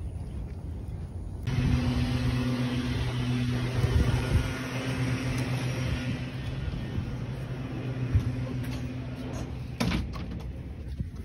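A steady mechanical hum with a low droning tone starts suddenly about a second and a half in and runs on under light handling knocks. A sharp knock comes near the end.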